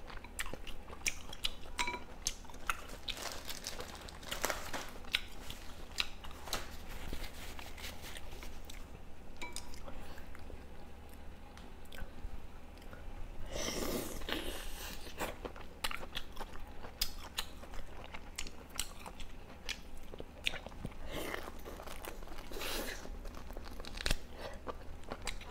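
Close-miked chewing and biting into chewy duck meat on the bone, with many small wet clicks and crunches. A louder, longer noisy burst comes about halfway through.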